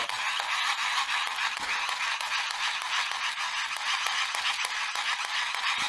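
Cheap plastic USB hand-crank generator cranked fast by hand: a steady grinding whirr of its hard styrene-type plastic gear train, with rapid clicking as the gears skip teeth even under no load. The skipping marks a gearbox too weak to hold the cranking speed, freshly greased with molybdenum grease.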